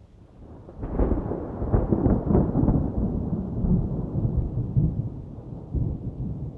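A thunderclap: a crackling peal about a second in, rolling into a long low rumble that slowly fades.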